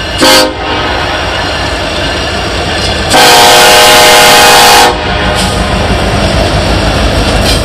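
Kansas City Southern SD70ACe diesel locomotive's five-chime Nathan K5LLA air horn, sounding a short blast and then, about three seconds in, a long blast of nearly two seconds, the end of the grade-crossing signal. The horn is loud enough to clip the recording. The locomotive's engine and wheels rumble underneath as it passes.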